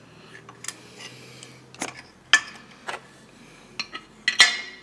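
Scattered metal clicks and knocks as a Farmertec 372 chainsaw crankshaft and crankcase half are handled and fitted together on a metal workbench, with two louder clanks, one about halfway through and a ringing one near the end.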